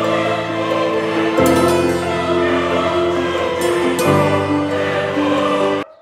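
Background music of long held chords that change twice, cutting off suddenly just before the end.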